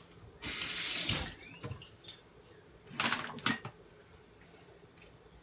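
Kitchen tap running briefly into the sink, a short rush of water lasting under a second, followed by a few light knocks about three seconds in as things are handled on the counter and in the cabinet.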